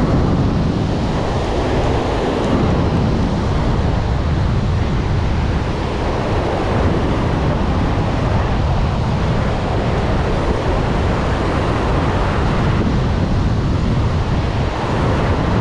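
Wind buffeting the microphone over a steady wash of surf on the beach.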